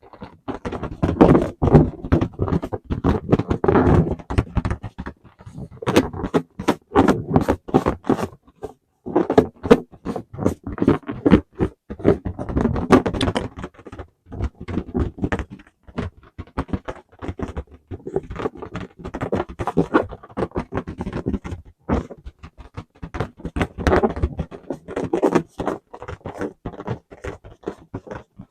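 Rubber balloons being hugged and squeezed: squeaking, creaking and scraping rubber with many quick sharp ticks, in irregular spells with short pauses between.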